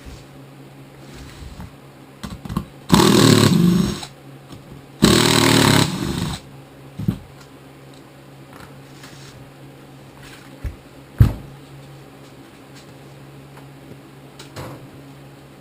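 A power tool runs in two bursts of about a second each, roughly two seconds apart, followed by a few sharp clunks of metal parts or tools being handled.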